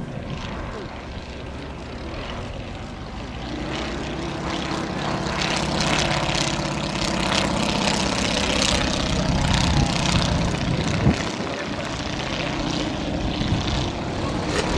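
The propeller engine of a vintage 1920s–30s light monoplane flying past, growing louder from about four seconds in and easing off again in the last few seconds. There is one short knock about eleven seconds in.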